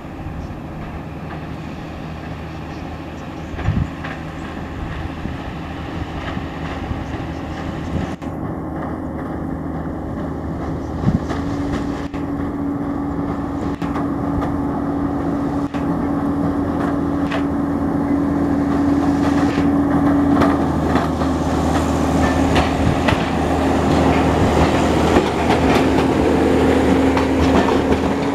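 Tram 29, a heritage tram, running along its street track and getting steadily louder as it approaches and passes. A steady hum joins about a third of the way in, and wheel clicks and knocks on the rails come more often near the end.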